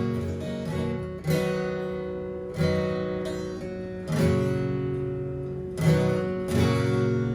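Acoustic guitar strumming chords, a fresh strum roughly every one to two seconds, each chord left ringing.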